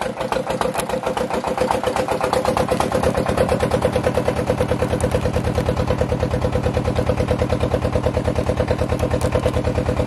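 A small boat engine running steadily with an even, fast pulsing beat, growing a little louder in the first two seconds.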